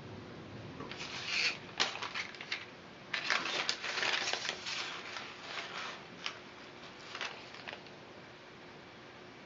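Dry flattened barley straws crackling and rustling as the straw panel is handled, in a short burst about a second in and a denser stretch from about three to five seconds, with scattered clicks after.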